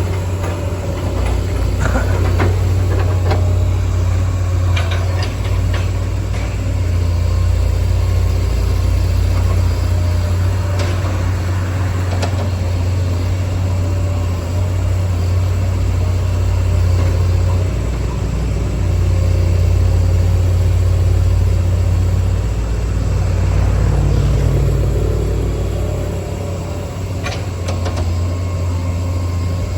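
Hydraulic excavator's diesel engine running steadily with a deep low rumble, with a few short knocks and clanks.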